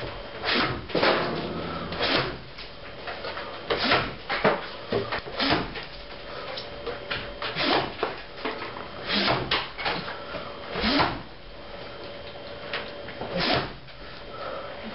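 Chopping strikes: a string of about a dozen sharp knocks at irregular intervals, some coming in quick pairs.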